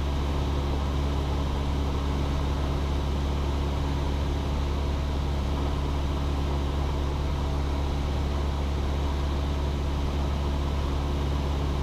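Cessna 172's piston engine and propeller droning steadily in level flight.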